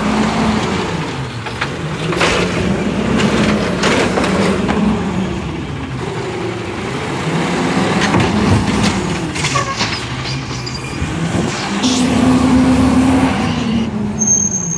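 Natural-gas automated side-loader garbage truck revving up and down several times as its hydraulic arm lifts a wheeled trash cart, tips it into the hopper and lowers it back down. Clanks and knocks from the cart and arm come in between.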